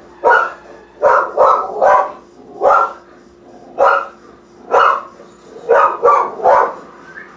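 A dog barking repeatedly, about ten loud barks, some coming in quick runs of two or three.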